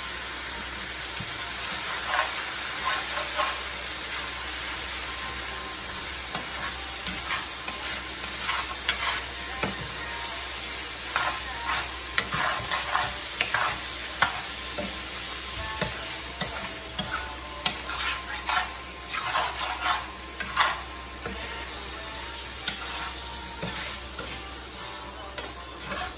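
Beef chunks frying in a skillet over a gas flame with a steady sizzle, stirred with a metal spoon. The spoon scrapes and clinks against the pan in quick clusters from about two seconds in, thickest through the middle and thinning out near the end.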